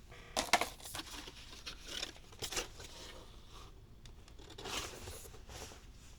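Keyboard accessory packaging being handled and opened, a series of rustling noises in short bouts. The loudest comes about half a second in, and a longer bout comes near the end.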